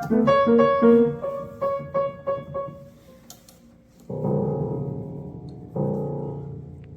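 Piano notes: a quick run of single notes, then two held chords, each fading away.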